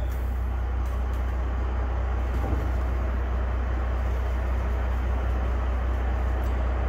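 Steady low hum and rumble of constant background noise, with no distinct knocks or changes.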